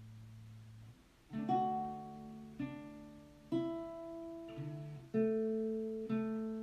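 Acoustic guitar: a held chord rings and fades, then after about a second chords are strummed roughly once a second, each left to ring.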